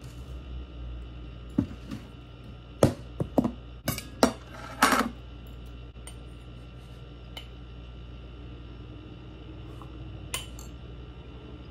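A metal spoon clinking against a ceramic mug, along with the handling of a glass jar and its metal lid: a quick run of sharp clinks a few seconds in, ending in a short scrape, and a single clink near the end. A steady faint hum lies underneath.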